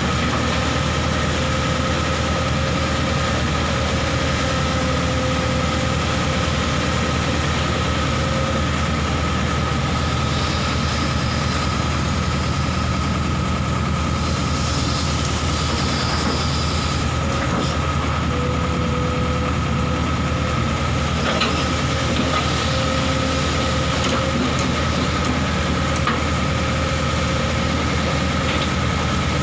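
Excavator's diesel engine running steadily, a low hum with a steady high whine over it and a couple of faint knocks in the second half.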